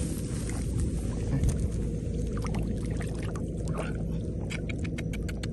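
Small engine running steadily at a constant pitch, with a run of short sharp knocks near the end.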